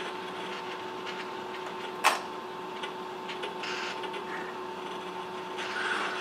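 Steady mechanical hum with two constant tones, and one sharp click about two seconds in.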